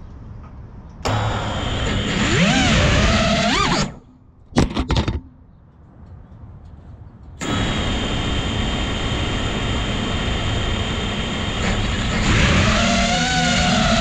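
FPV quadcopter's brushless motors and propellers, heard through its onboard camera. They spin up suddenly about a second in, pitch sliding up and down with the throttle, then stop just before four seconds apart from a few short blips. They run again steadily from about seven and a half seconds, with the pitch wandering once more near the end.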